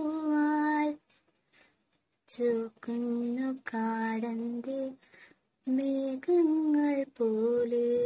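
A young woman singing unaccompanied, holding long steady notes in short phrases, with a pause of about a second near the start and a shorter one midway.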